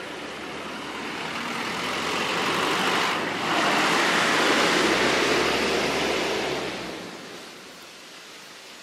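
A motor vehicle driving past, growing louder over about three seconds and then fading away about seven seconds in, with a low engine hum under the tyre and road noise.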